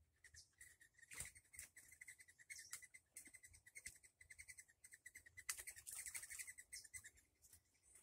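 Faint, rapid trill of a small bird calling: a steady string of quick, even high notes that stops shortly before the end. A couple of sharp clicks fall about a second in and about five and a half seconds in.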